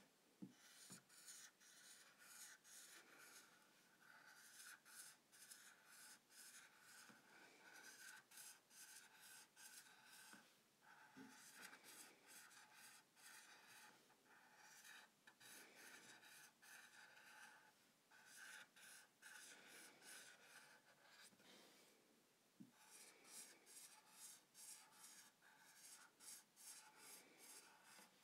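Faint dry-erase marker squeaking and scratching on a whiteboard in short, rhythmic strokes while writing a row of joined cursive letter m's, with brief pauses about 11 and 22 seconds in.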